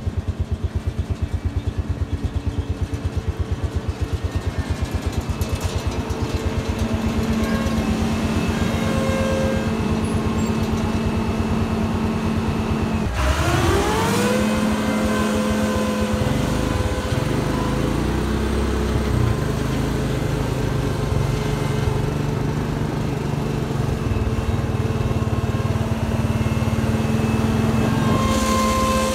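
A farm machine's engine idles with a rapid low pulse. About thirteen seconds in it revs up sharply, its pitch rising, then runs steadily at high speed.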